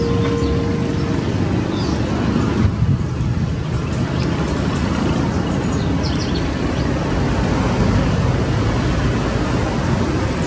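Steady low outdoor rumble, with a few short high chirps scattered through it.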